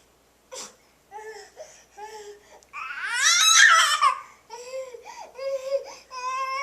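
A baby fussing in short, whiny cries, breaking into a loud wail about three seconds in, then whimpering again. A brief sharp noise sounds about half a second in.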